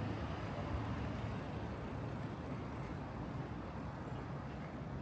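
Road traffic: a motor vehicle running close by, heard as a steady low rumble of engine and tyres.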